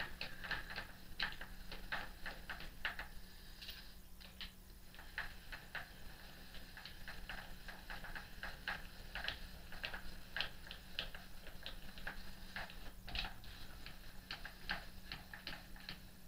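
Rapid uneven clicking, about three clicks a second with short pauses, as the X-axis handwheel of an RF-31 mill/drill is cranked and the table travels along its leadscrew. A steady low hum runs underneath.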